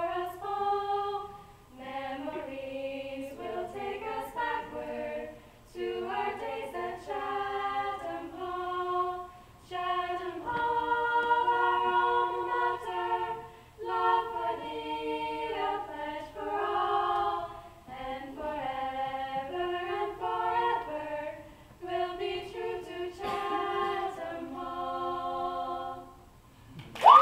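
Female vocal sextet singing a school alma mater a cappella in close harmony, phrase by phrase with short breaks for breath. The last phrase ends shortly before the close.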